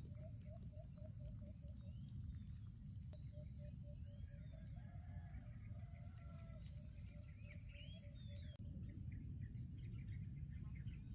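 Outdoor rural ambience: a steady, high insect trill, with a low note pulsing about three times a second that stops about eight seconds in, and scattered short bird chirps over a dull low rumble.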